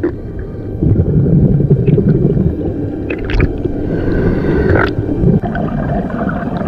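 Muffled underwater rushing and bubbling heard through a camera housing just after a scuba diver's entry into the sea. It is a dense, loud low rumble with a few sharp clicks about three and five seconds in.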